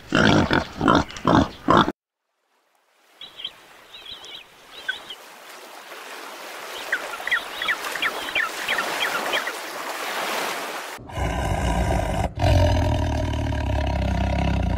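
Wild boar grunting in a quick series, cut off about two seconds in. After a short gap come short, high king penguin calls over a steady rushing background. From about eleven seconds a tiger growls low.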